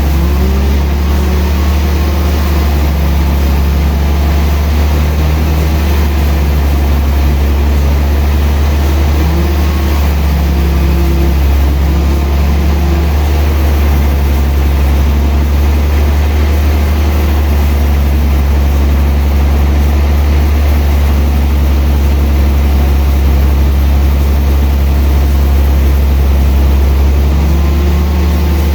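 Sawmill machinery running steadily, a loud low hum with a higher tone that wavers in pitch now and then.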